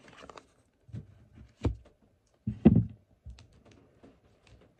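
Tarot cards handled over a cloth-covered table: a short rustle of the deck being shuffled, then a few separate soft thumps and taps as cards and hand come down on the table, the loudest about two and a half seconds in.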